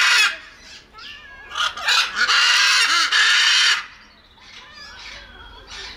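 A macaw gives loud, harsh squawks: one is ending right at the start, and a longer one of about two seconds comes in the middle. Quieter, shorter calls are heard between and after them.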